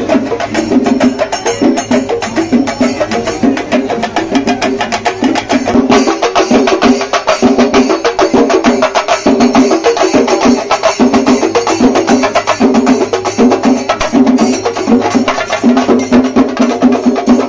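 Loud festival music: a percussion ensemble drumming in a fast, dense stream of sharp strokes, with a melody line running over it.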